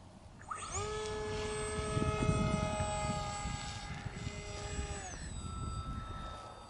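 Radio-controlled model airplane's motor and 6x5.5 propeller whining up sharply to full throttle about half a second in, then holding a steady high whine as the plane climbs. About five seconds in it is throttled back and the whine drops to a lower, quieter tone, over a low rumble.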